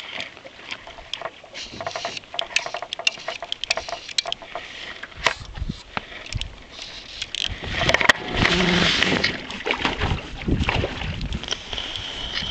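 Handling noise in a small fishing boat: irregular knocks, clicks and rubbing, with a louder rushing, splashy stretch about eight seconds in.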